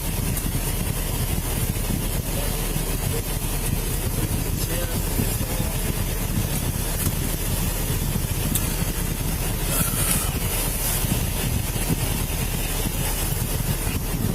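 Steady low rumble of a vehicle engine running, with a faint hiss over it.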